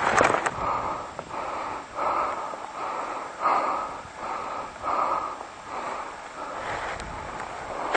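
A person breathing hard and fast close to the microphone, about one and a half heavy breaths a second: out of breath from running.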